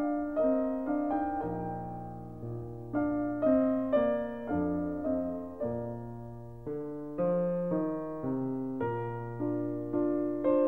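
Background piano music: a gentle melody of struck notes, about two a second, over lower bass notes.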